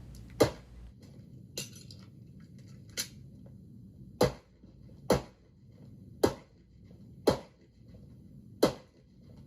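A string of pistol shots, about one a second, six loud and two fainter.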